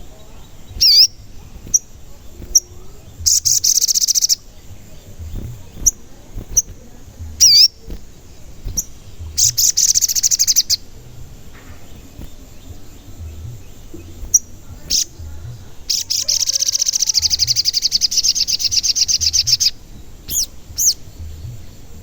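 Sogon bird calling: scattered sharp 'cuit' chirps mixed with rapid high trills, three of them, the last lasting nearly four seconds, over a low rumble.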